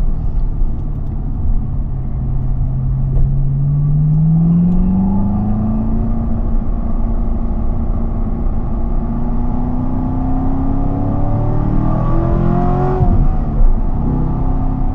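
Corvette C7's 6.2-litre V8 pulling under load: steady at first, then revs rise from about four seconds in and keep climbing. Near the end the revs drop abruptly, followed by a short loud burst.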